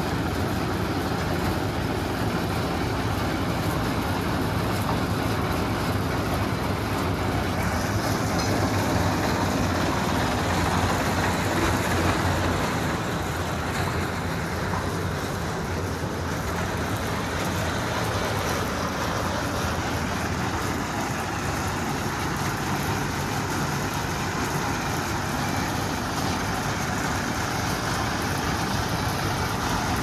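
Three-cylinder Mahindra diesel engine of a self-propelled lift mixer machine running steadily.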